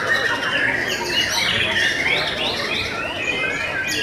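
White-rumped shamas singing: a dense run of overlapping, quickly rising and falling whistled phrases, several caged birds at once.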